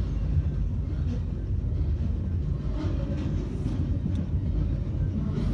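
Double-stack intermodal well cars rolling past: a steady low rumble of steel wheels on rail, with a few faint clicks.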